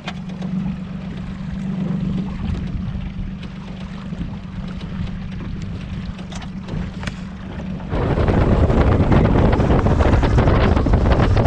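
A small boat motor humming steadily at trolling speed, with a few faint clicks. About eight seconds in, loud wind buffeting the microphone and rushing water take over as the boat runs under way.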